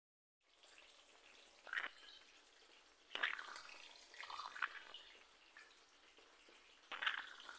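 Breaded chicken strips and potato sticks shallow-frying in hot oil in a pan: a steady sizzle, with four or five short, louder bursts of spattering.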